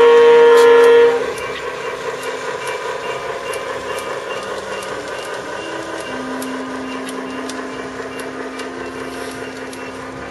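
Diesel horn from the electronic Dallee sound units in G-scale model diesel locomotives, sounding loudly and cutting off about a second in. After it the units' synthesized diesel engine sound runs steadily, with light clicks of the wheels over the track, gradually fading as the train moves away.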